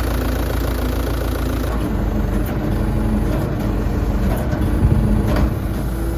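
Caterpillar 312C excavator's diesel engine running steadily, its pitch changing about two seconds in, with a few short clicks or knocks in the second half.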